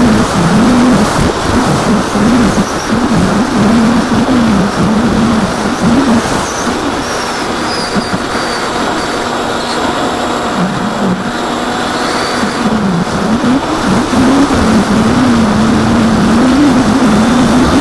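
Electric motor and propeller of an AXN foam FPV plane heard from the onboard camera, under heavy wind rush. The motor's pitch wavers up and down with the throttle, easing off and quieter from about six to thirteen seconds in, then picking up again.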